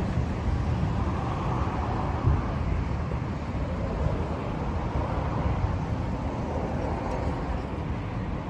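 Suzuki GSX-S1000F's inline-four engine idling steadily, with no revving.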